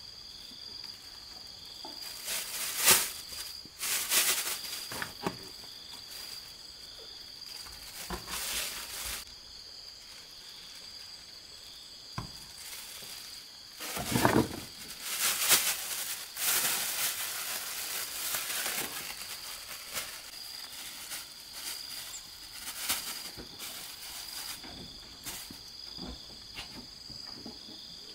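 Thin plastic bag crinkling and rustling as it is handled, in several bursts, the longest stretch around the middle. Behind it, insects keep up a steady high-pitched drone.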